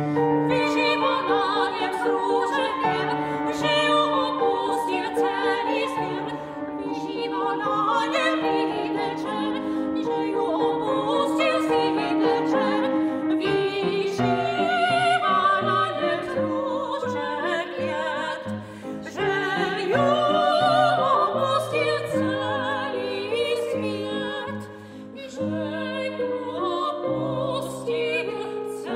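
Two sopranos singing a classical art song as a duet, with vibrato, accompanied by a grand piano.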